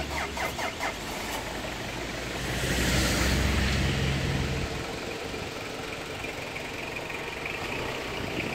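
Street traffic on wet asphalt: a vehicle engine idling low for the first half, and a car's tyres hissing past on the wet road, loudest about three seconds in. A quick run of clicks in the first second.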